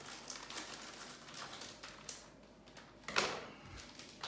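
Plastic bag crinkling as it is snipped open with scissors and handled, then a louder rustle about three seconds in as a helmet face shield is pulled out of it.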